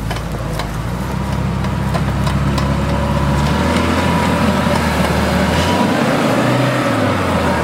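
UAZ Patriot SUV engine working under load as the vehicle climbs a steep, rutted mud slope, growing louder over the first couple of seconds and then running steadily.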